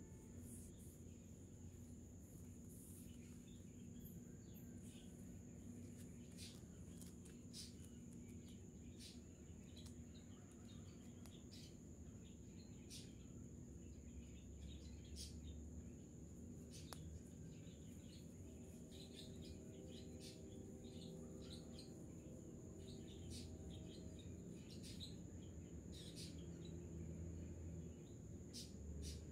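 Near silence: faint outdoor ambience with a steady high-pitched whine and many scattered faint, short high chirps or ticks over a low hum.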